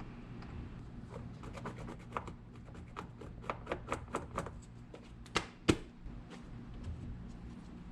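A run of light, irregular clicks and taps from handwork on a soccer shoe, with one sharper knock about five and a half seconds in.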